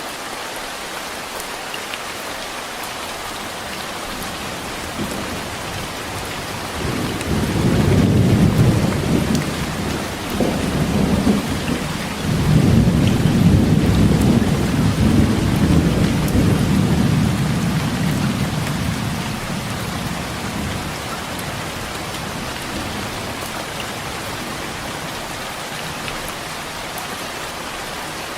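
Heavy rain pouring steadily, with a long rolling thunder rumble. The thunder builds about seven seconds in, swells twice, and fades away by about twenty seconds.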